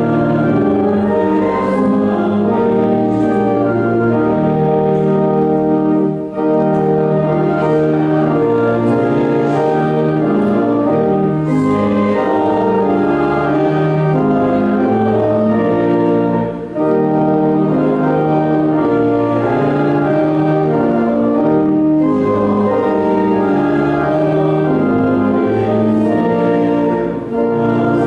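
Church organ playing slow, sustained hymn-like chords, in phrases with short breaks about every ten seconds.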